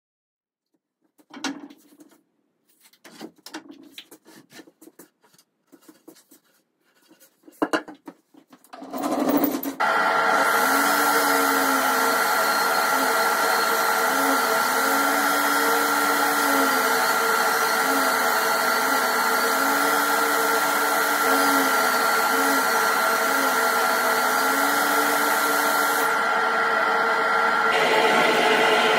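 A few scattered clicks and knocks, then about ten seconds in a woodworking jointer starts and runs steadily with a fixed whine as an oak board is fed across its cutter.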